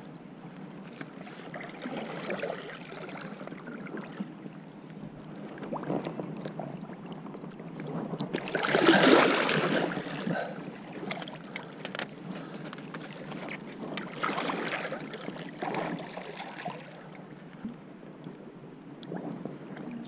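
Shallow water splashing and sloshing as a giant wels catfish thrashes at the bank, with the loudest surge of splashing about nine seconds in and another around fourteen seconds.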